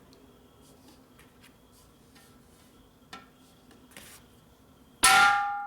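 A few faint light knocks, then about five seconds in a single hard bang on a steel motorcycle gas tank laid over a dimpling tool, the metal ringing on after the hit. The blow presses a dimple into the tank to give it clearance.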